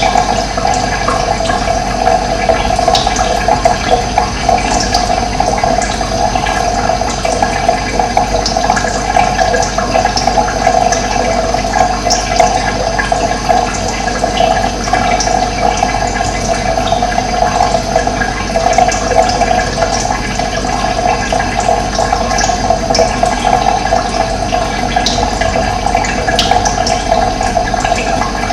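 Running water flowing steadily, with brief bird chirps here and there.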